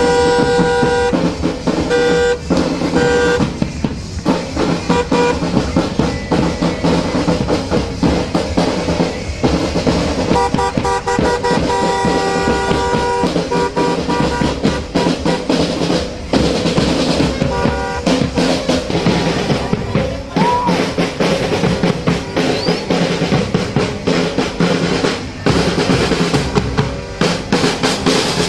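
Parade marching-band drums, bass drum and snare drums, playing a fast continuous rhythm with drum rolls. A horn sounds in long blasts at the start and again for a few seconds near the middle.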